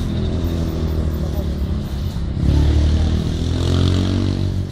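Military cargo trucks of an army convoy driving past, their diesel engines running steadily and growing louder about halfway through as a truck passes close.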